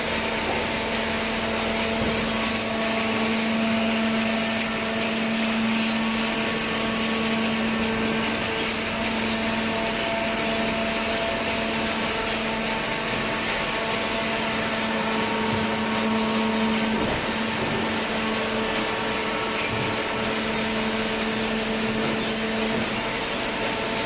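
Hydraulic waste-paper baler running: a steady machine hum with a few held tones over an even hiss.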